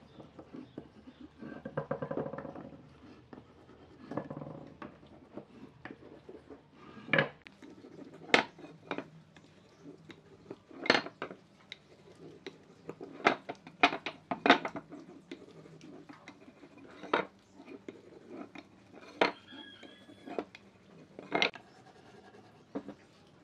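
Hand layout work at a workbench: irregular sharp clicks and knocks as pine boards and a wooden marking gauge with a metal head are handled, set down and run along the wood, with short scraping sounds about two and four seconds in.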